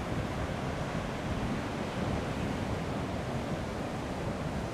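Steady low rushing of wind on the microphone, even and unbroken.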